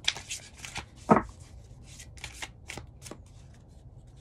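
A deck of goddess oracle cards being shuffled by hand: a quick, irregular run of card flicks and slaps, with one louder tap about a second in.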